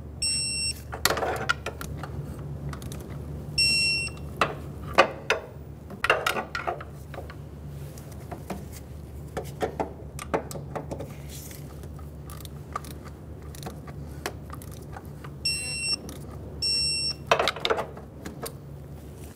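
Digital torque wrench beeping: four short high beeps as pulley bolts reach the set torque of 18 ft-lb, with metallic clicks and knocks of the wrench and pry bar on the pulley between them. A steady low hum runs underneath.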